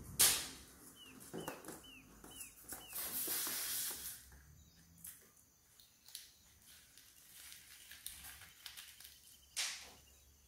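Slime being squeezed out of a cut balloon into a bowl of foam beads and toppings: soft sticky crackles and clicks, with a sharp snap just after the start and another near the end. A small bird chirps five times in quick succession in the background about a second in.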